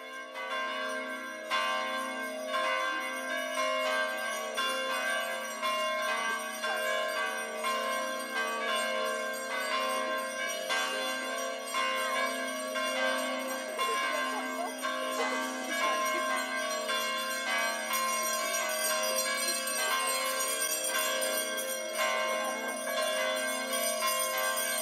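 Bells ringing continuously, many overlapping ringing tones hanging on with regular fresh strikes, as for a procession at the Easter Vigil.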